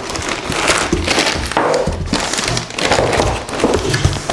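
Plastic wrapping crinkling and rustling, with cardboard scraping and dull thuds, as brush-cutter parts are lifted out of their shipping box.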